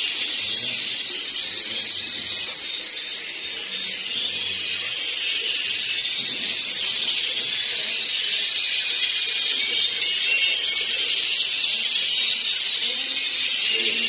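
Yorkshire canary singing without a break: a stream of fast, high trills and rolls.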